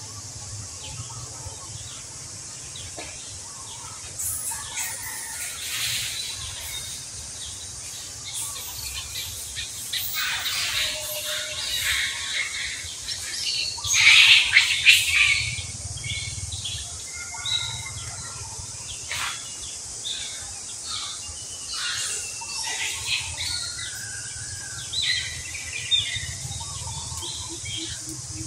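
Many short, high chirping and squeaking animal calls, coming thick and loudest about halfway through, over a steady high-pitched hiss.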